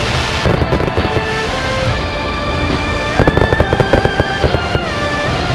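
Fireworks going off in a rapid string of bangs and crackles, densest and loudest about three seconds in, over background music.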